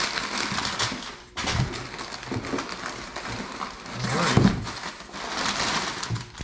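Packing paper crumpling and rustling as it is pulled out of a cardboard box, with the box and a bubble-wrapped package being handled. It comes in uneven spells, with a brief pause just over a second in.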